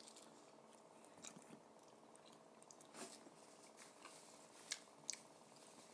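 Faint chewing of fried salted-egg chicken wings, with a few soft crunchy clicks spread through.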